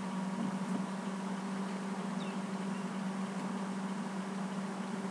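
Steady low hum with a faint even hiss underneath, unchanging throughout.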